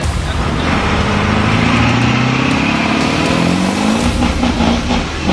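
Vehicle engine accelerating, its pitch climbing steadily for about three seconds, then dropping about four seconds in and running on unevenly.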